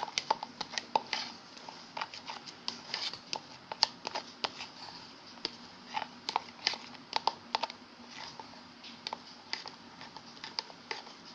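A stirrer clicking and tapping irregularly against a container, several knocks a second, as clay and water are stirred together into slime.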